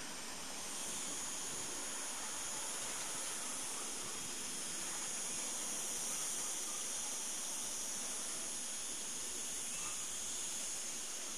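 Cicadas singing: a steady, high buzzing chorus that grows a little louder about a second in.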